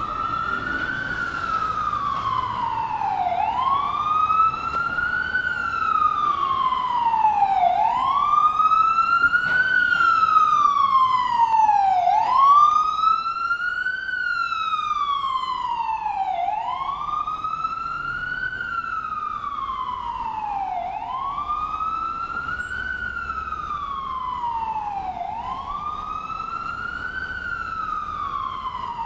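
Ambulance siren in wail mode: a tone that climbs quickly and then slides slowly back down, repeating about every three and a half seconds. It grows louder toward the middle and then eases off a little, with faint street traffic underneath.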